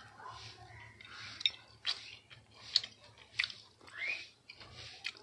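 A person eating chicken biryani: chewing with wet mouth smacks and clicks, four of them sharper than the rest, over a faint steady low hum.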